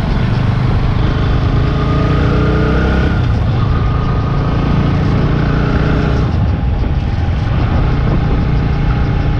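Bajaj Pulsar NS160's single-cylinder engine running while the bike is ridden, its pitch climbing over the first three seconds as it accelerates, over a heavy steady rumble.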